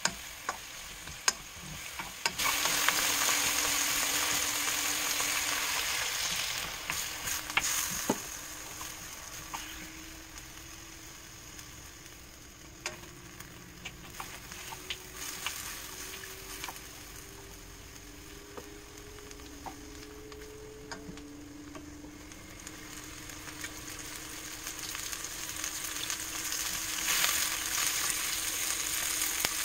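Lotus root slices sizzling in oil in a wok, with the light clicks and scrapes of a wooden spoon stirring them against the pan. The sizzle jumps sharply louder about two seconds in, fades over the next several seconds, and builds again near the end.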